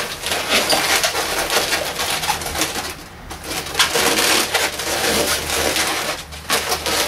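Inflated latex 260 modelling balloons squeaking and rubbing against each other as a balloon monkey is twisted and handled, with a brief lull about three seconds in.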